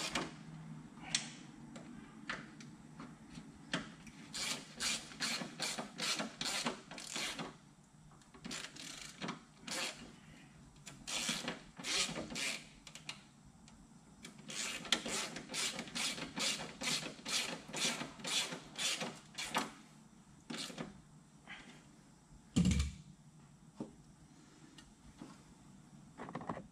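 Hand ratchet on a long extension clicking through repeated strokes as a bolt is turned. The clicks come in runs of rapid ticks with short pauses between them. A single heavier thump comes about three-quarters of the way through.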